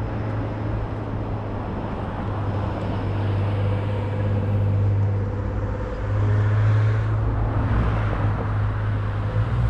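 A car engine running steadily with a low hum over outdoor background noise, a little louder about six seconds in.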